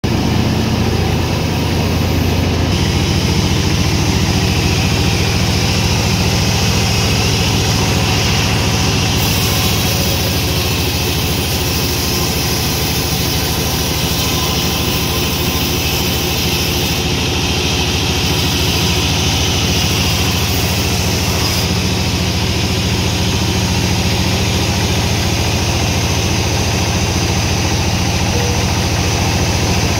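Heavy sawmill machinery running steadily: a continuous low engine hum with an even pulse and hiss above it.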